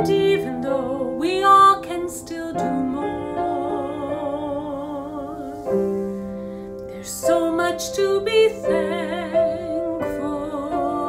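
A woman singing a slow song solo with vibrato, holding long notes over piano accompaniment.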